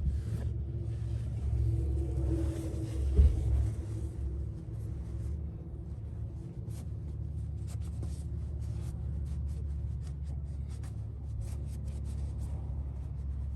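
Steady low rumble under scattered light clicks and scrapes of hands and tools handling the oil filter and drain area, with one louder knock about three seconds in.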